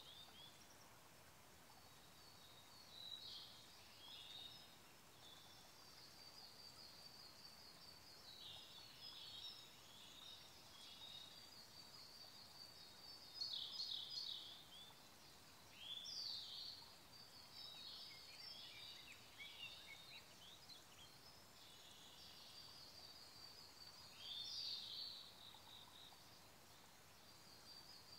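Siberian blue robin singing short, high phrases every few seconds, over the faint hiss of a small stream.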